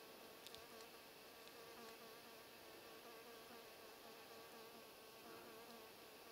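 Near silence with a faint, steady buzz of a flying insect: one held note with fainter overtones above it.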